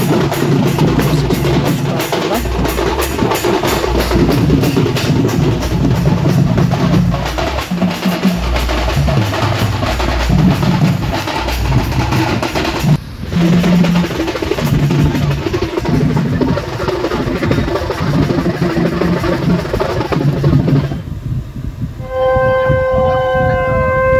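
Street drum band of stick-beaten drums, a large metal barrel drum and small round frame drums, playing a loud, fast, continuous rhythm with heavy low thumps. There is a brief break about 13 seconds in. Near the end the drumming stops and a wind instrument plays a wavering, held melody.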